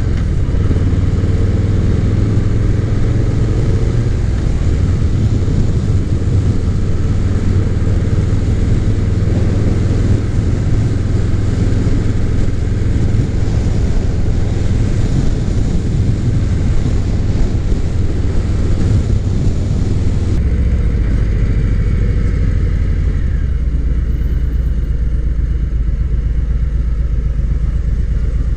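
Harley-Davidson Low Rider's Milwaukee-Eight V-twin engine running under way, with wind and road noise on the microphone. About twenty seconds in, the wind noise drops off and the engine note settles lower as the bike slows.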